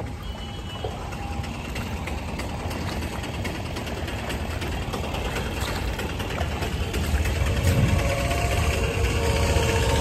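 Vehicle engines running in street traffic, a steady low rumble that grows louder in the second half.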